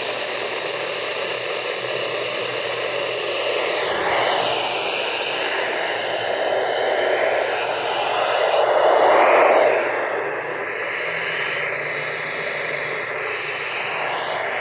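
Radio receiver static: a steady hiss with no speech coming through, swelling louder briefly about nine seconds in.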